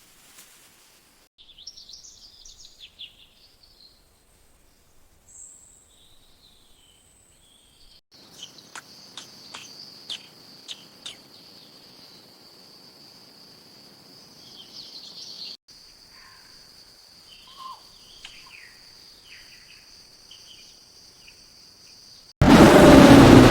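Jungle ambience: birds chirping in short calls and a steady high insect buzz, broken by abrupt cuts, with a few sharp clicks in the middle. About a second before the end a loud rush of noise starts suddenly, like heavy rain or thunder.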